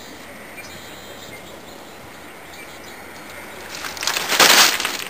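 Faint outdoor background, then from near the end loud crunching footsteps on gravel, coming about once a second.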